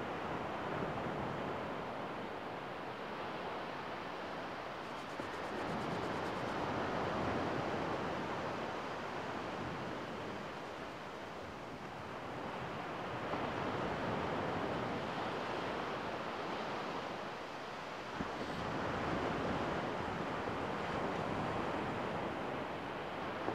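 Gentle surf on a sandy beach: small waves breaking and washing up the shore, the sound swelling and fading every five or six seconds.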